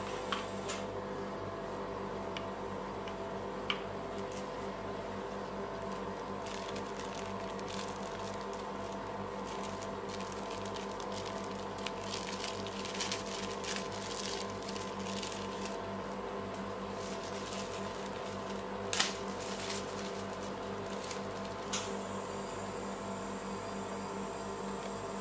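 Steady mechanical hum from the rolled-ice-cream machine's refrigerated cold plate. Over it come scattered light clicks and rustles of items being handled at the plate, the sharpest click about 19 seconds in.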